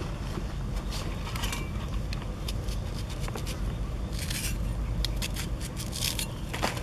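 Small scrapes and clicks of a cleaver blade against a small onion as it is peeled by hand, coming more often in the second half, over a steady low rumble.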